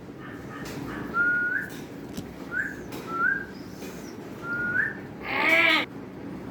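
A pet parrot whistling: five short notes, each held level and flicking upward at its end, then one louder call with a bending pitch about five seconds in.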